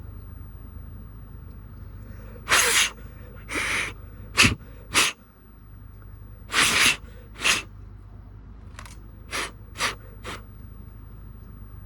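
Fuel-pump filter being forced onto the pump inlet by hand: a run of about ten short scraping and rubbing noises over some eight seconds, some longer and some sharp. They come as the sanded-down aftermarket filter is worked into place.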